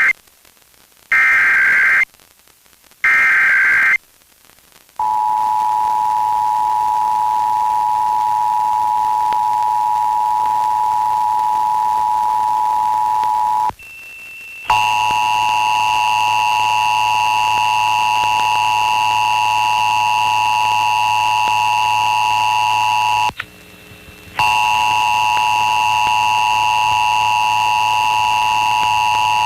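Emergency Alert System tones broadcast over FM radio. Two one-second bursts of the digital SAME header data come about a second apart, ending the header's three-time repeat. About five seconds in the steady two-tone attention signal starts. It breaks off twice for about a second and comes back harsher, with a high buzz and a low hum under it.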